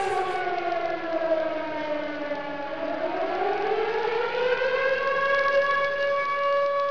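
A siren-like pitched tone that falls steadily in pitch for about three seconds, climbs back up, and then holds one steady note.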